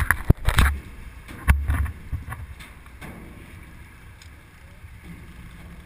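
A few sharp knocks and low buffeting thumps on the microphone in the first two seconds, then the steady low hum of a sportfishing boat drifting, with light wind.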